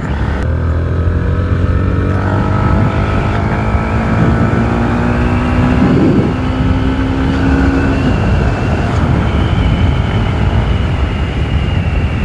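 Motorcycle engine running under way on a rough track, its pitch climbing gently over the first few seconds, with wind noise on the microphone.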